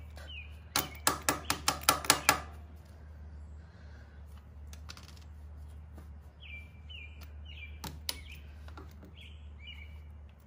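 A quick run of about eight sharp metal clicks from a hand tool prying at the E-clip on a Harley-Davidson footpeg's pivot pin, then one more click near the end. Birds chirp briefly a few times in the background.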